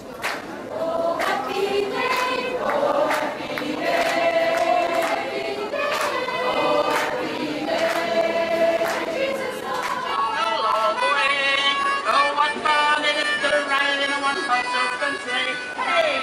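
A choir singing together in harmony, with a sharp beat about once a second.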